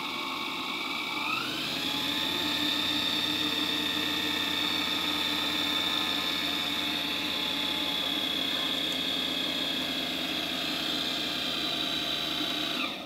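Small brushed DC motor driving a second DC motor through a rubber belt as a generator: a steady high electric whine that rises in pitch about a second in as the motors speed up, holds, then cuts off suddenly at the very end.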